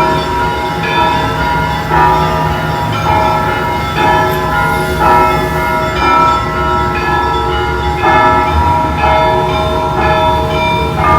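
Church bells ringing: several bells of different pitches struck again and again, about one fresh stroke a second, their tones ringing on and overlapping.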